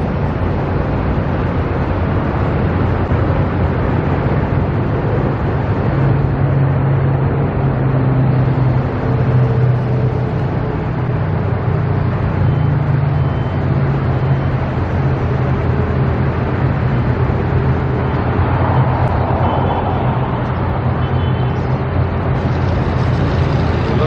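A large engine running steadily at one speed, a constant low drone with no change in pitch.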